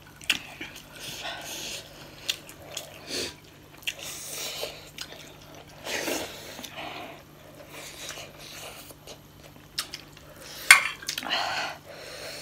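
Close-up eating sounds of two people: noodles slurped from a fork, chewing and lip smacking in an irregular string of short bursts, with a few sharp clicks and one louder snap a little before the end.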